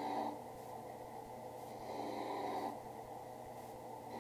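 Benchtop drill press running with a sanding drum, a leather holster's edge held against the drum. The sanding noise swells louder three times, about every two seconds, over the motor's steady hum.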